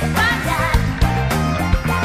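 Live pop-rock band music with electric guitars and drums keeping a steady beat.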